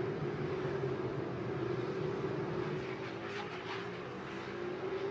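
Racing superbike engines running hard, heard from trackside as a steady drone whose pitch drifts slowly, with a few brief sharper rasps about three to four seconds in.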